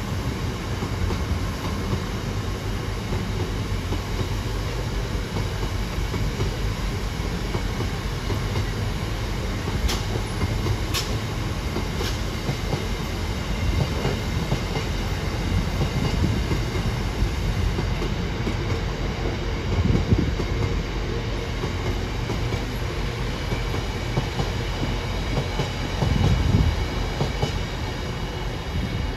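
Long GBRf freight train of bogie box wagons rolling past, a steady rumble of wheels on rail with the clickety-clack of wheels over rail joints. A few sharp clicks come about ten seconds in, and heavier low thumps near twenty and twenty-six seconds.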